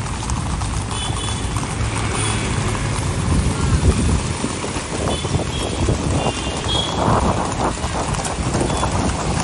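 Motorcycle and traffic engines running alongside a group of horses trotting on a paved road, their hooves clopping irregularly, with a few short high tones.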